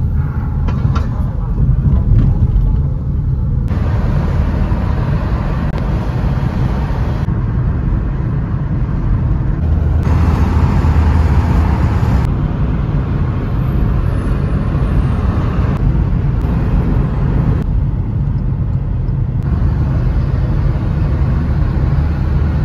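Hyundai Solaris taxi driving on city roads, heard from inside the car: a steady low road and engine rumble, with sudden changes in the noise every few seconds where short clips are cut together.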